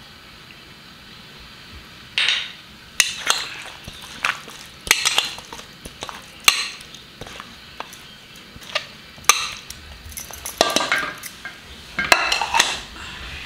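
A hand rubbing spice masala into marinated fish on a steel plate: irregular sharp clinks and short scrapes against the metal plate, starting about two seconds in.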